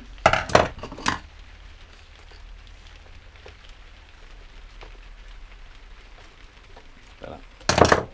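Metal hand tools clinking and clattering at a workbench: a few sharp clinks in the first second, then quiet handling, then a louder clatter near the end.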